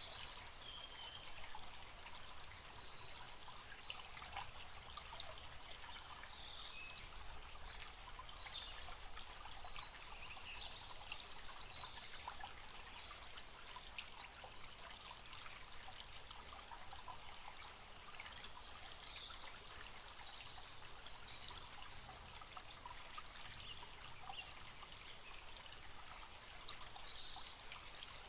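Small forest stream trickling and babbling steadily, with birds chirping in short calls now and then above the water.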